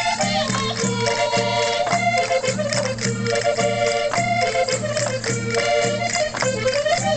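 Portuguese folk band playing a chula: an accordion melody over a steady bass-drum beat, with a rattling percussion part.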